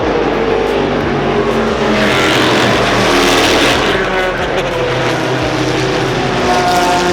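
Race cars' engines running hard on the circuit, several at once, with a rushing swell about two to four seconds in as cars pass close by.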